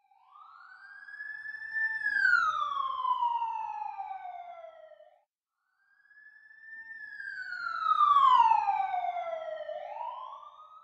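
A siren wailing in two long sweeps. It rises for about two seconds and falls away. After a short gap it starts high, falls slowly, and begins to rise again near the end.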